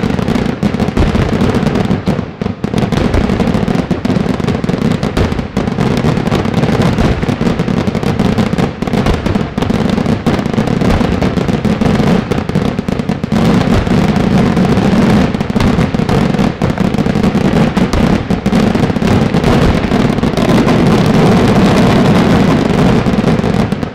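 Daytime aerial fireworks barrage: a dense, unbroken run of shell bursts and firecracker bangs, with coloured-smoke shells bursting overhead. The barrage stops abruptly at the very end.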